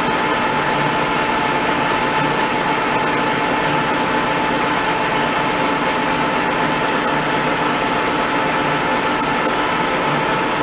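Pratt & Whitney Model B 12x30 engine lathe running steadily under power feed, its spindle turning a large steel workpiece as the tool takes a cut. The machine gives a steady whine with a low pulse about once a second.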